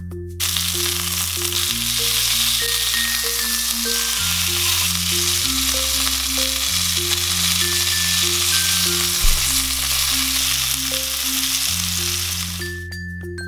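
Boneless chicken thighs sizzling as they fry in a nonstick frying pan, over light background music of mallet percussion. The sizzle starts abruptly about half a second in and cuts off about a second before the end, with a single sharp knock about nine seconds in.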